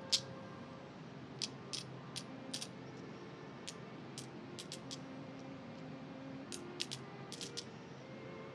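Coins clinking as they are picked up and counted on a wooden table: a run of small, irregularly spaced metallic clicks, some singly and some in quick pairs or triplets.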